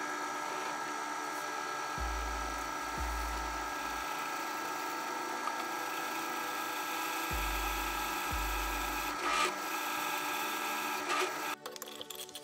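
Drill press running, its bit cutting a hole in a metal bar held in a machine vise, with a steady whine and short sharper flares of cutting. The sound breaks off abruptly near the end.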